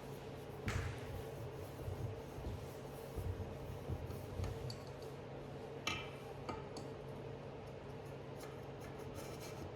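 Light clicks, taps and rubbing of metal engine parts being handled during reassembly, a few sharper clicks standing out, over a steady low hum.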